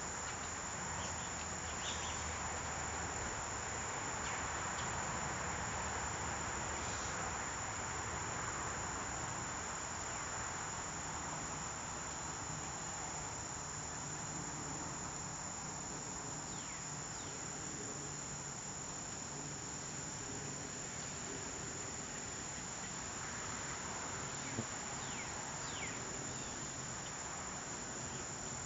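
Evening chorus of late-summer insects: a continuous, unbroken high-pitched trill over a steady background hiss. There is one brief click near the end.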